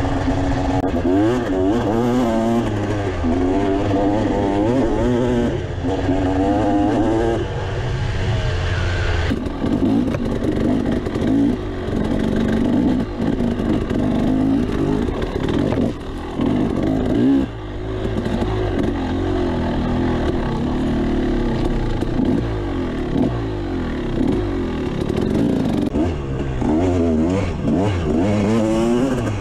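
KTM 300XC two-stroke single-cylinder dirt bike engine being ridden hard, its pitch rising and falling again and again as the throttle is worked through the gears. The sound changes abruptly about nine seconds in.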